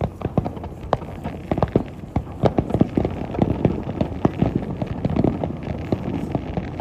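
Fireworks going off in a dense, irregular volley of sharp bangs and crackling pops that thins out near the end.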